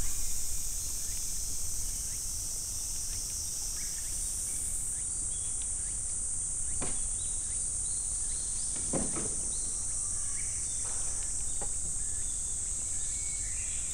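Steady, high-pitched chorus of summer insects, with a few short bird chirps and a few soft knocks.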